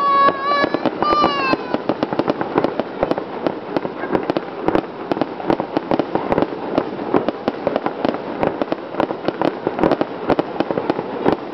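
Fireworks going off: a dense, continuous crackle of many rapid small pops and cracks that surges and dips in loudness. Two short high-pitched tones sound in the first two seconds, the second falling in pitch at its end.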